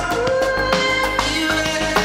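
Instrumental background music: sustained melodic notes over a percussive beat.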